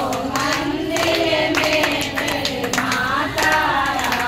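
Woman singing a devotional bhajan to the goddess Durga through a microphone, with hand claps along with the song.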